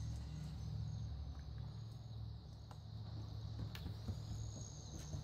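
Faint outdoor ambience on a phone recording: a steady low rumble with a thin high chirring and a few faint clicks.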